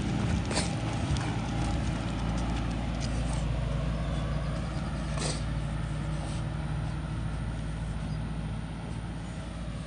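Steady low hum of a vehicle engine running nearby, fading slowly, with a couple of sharp clicks.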